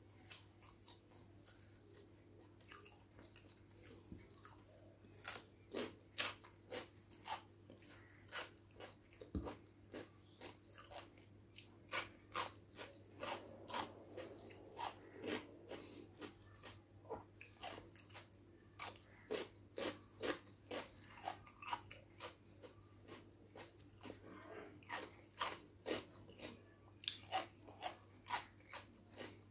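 Close-miked mouth sounds of eating biryani rice by hand: chewing with a run of sharp wet smacks and clicks, about one to two a second, as the fingers go into the mouth and are licked.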